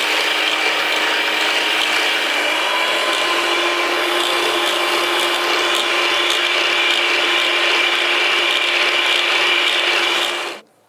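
Electric hand mixer whipping cream in a bowl, with a steady motor whir. Its pitch steps up slightly about two and a half seconds in. It switches off abruptly near the end.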